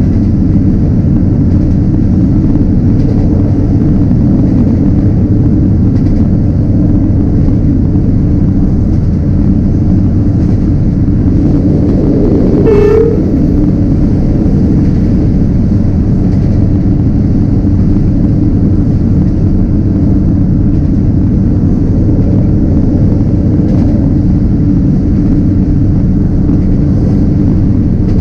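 Train in motion heard from on board: a steady, heavy rumble of wheels on the rails mixed with wind. One short horn blast comes about halfway through.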